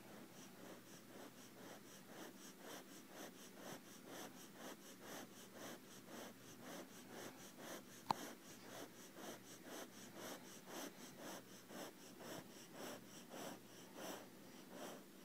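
A Siberian husky panting quickly and faintly right at the microphone, about three breaths a second. One sharp click about eight seconds in.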